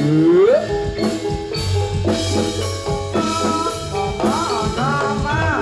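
Javanese gamelan music for jathilan: struck metallophones and drums with a gliding melody line above them, and long low notes underneath.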